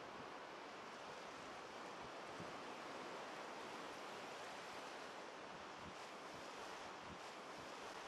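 Surf of small waves breaking and washing up a sandy beach, a steady hiss of water, with a light wind rumbling now and then on the microphone.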